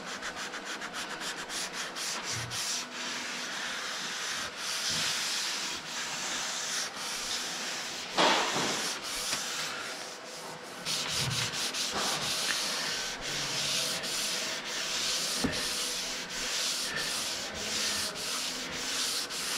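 Sandpaper rubbed by hand over cured fibre polyester body filler on a car panel, in quick back-and-forth strokes, with one louder scrape about eight seconds in.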